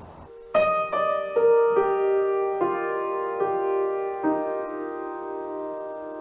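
Slow piano music: about seven single notes struck one after another in the first four seconds, each left ringing so they build into a sustained chord that slowly fades.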